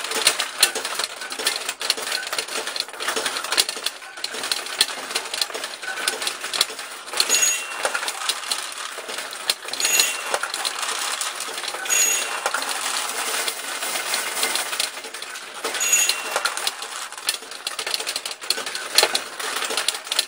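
Steel pachinko balls clattering continuously through the nails and pockets of a 1974 Nishijin Switcher, an automatic recirculating pachinko machine. A short, clear ringing tone sounds four times over the clatter.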